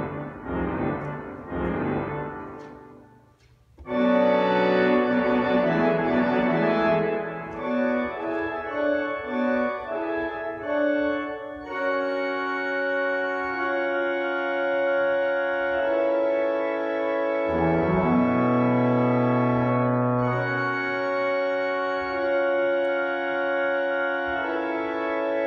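Virtual pipe organ voiced as the 1902 two-manual Cavaillé-Coll organ of St. Eucaire, playing on its reed stops. A fast passage breaks off about three seconds in, and loud full chords start again at about four seconds. These settle into long held chords, with a deep pedal note sounding for a few seconds past the middle.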